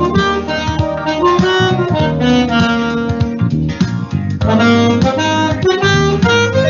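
Saxophone playing a moving melody of short and held notes over a lower accompaniment.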